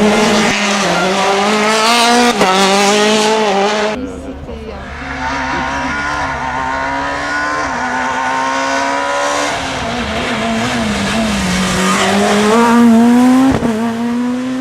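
Rally car engines revving hard on a stage, pitch climbing and dropping with each gear change. The sound changes abruptly about four seconds in as another pass begins, and there is a single sharp crack near the end.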